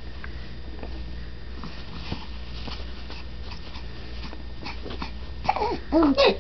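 A dog 'talking' in reply to its owner: after a quiet stretch with faint small clicks, a few short, loud, pitched whine-like vocal sounds that bend up and down come near the end.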